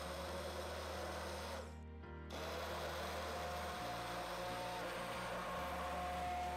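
Immersion blender running in a pot of soup, its motor whining over a churning, blending noise as it purées chunks of roasted squash and vegetables. It cuts out about a second and a half in and starts again half a second later.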